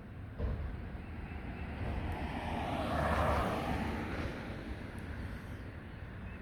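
A vehicle passing close by: its noise swells to a peak about halfway through, then fades, over a low steady engine hum.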